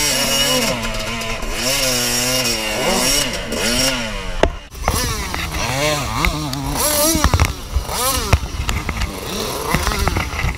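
Yamaha dirt bike engine revved in short, repeated throttle blips, its pitch rising and falling again and again, with a brief drop near the middle. Several sharp knocks sound in the second half.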